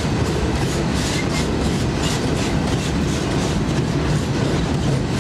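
Loaded coal train of hopper wagons rolling along the rails with a steady rumble. Wheels clack over rail joints, most plainly between about one and two and a half seconds in.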